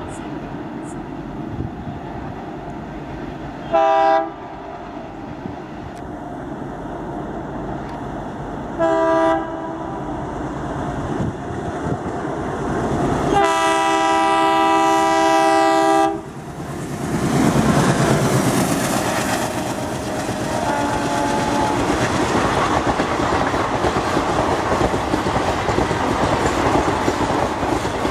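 Alco WDM-3D diesel locomotive approaching with its engine chugging, sounding its horn in two short blasts about five seconds apart, then one long blast of about three seconds. Just after, the locomotive passes loudly, engine and turbocharger running, and the coaches follow with a steady clickety-clack of wheels over rail joints.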